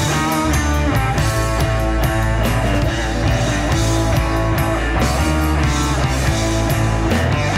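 Rock band playing live: electric guitar over bass and drums with a steady beat.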